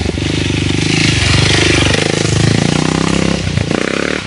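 Dirt bike engine revving as it rides past, loudest about halfway through, its note rising and falling with the throttle.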